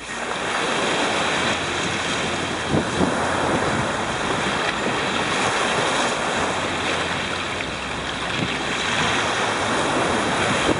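Strong wind buffeting the microphone over waves washing against the shore, a steady rushing noise.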